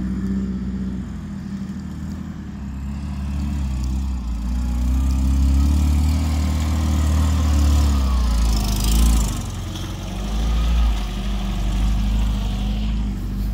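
A heavy off-road 4x4's engine running under load as it tries to climb a slope. It grows louder in the middle and eases off after about nine seconds, with a short hiss near the peak.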